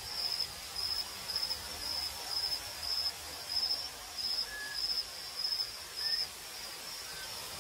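Crickets chirping steadily in a regular rhythm, about two short high-pitched chirps a second, over a faint background hiss.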